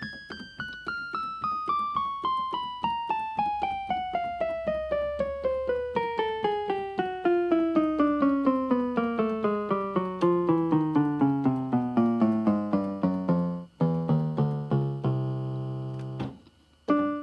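Keyboard playing a slow falling sound effect: a long run of single notes, about four a second, each a step lower than the last, sliding from high down to the bass. It ends on a few low notes and a held low note, with one short note near the end.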